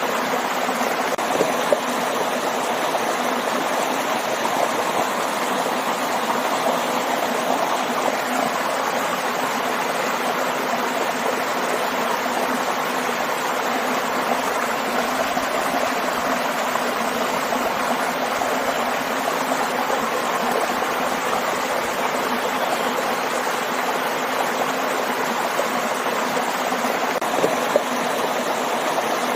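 A waterfall and stream rushing in a steady, even wash of water noise.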